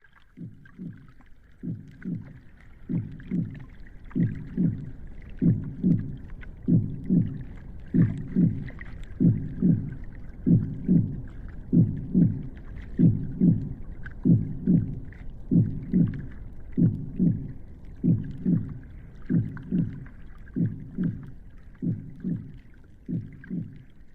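A slow heartbeat: low double thumps (lub-dub) about every second and a quarter, fading in over the first couple of seconds, over a faint steady hiss.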